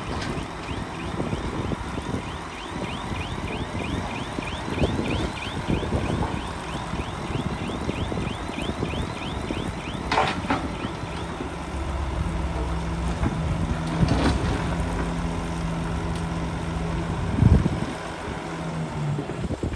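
Heavy diesel earthmoving machinery working soil, with the engine running throughout. A quick regular clicking of about three a second runs through the first half, there are sharp knocks about halfway and about two-thirds through, and a steady engine hum comes in over the last third.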